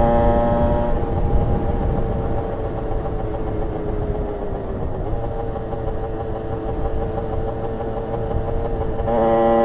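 Rieju RS2 50's 50cc two-stroke engine with a custom exhaust: it comes off the throttle about a second in, runs lower and steadier with a brief dip in pitch midway, then picks back up strongly just before the end.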